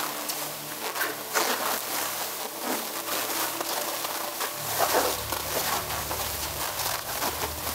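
Large sheet of clear plastic film rustling and crinkling irregularly as people move beneath it, with louder crackles every second or so. A low steady hum comes in about halfway through.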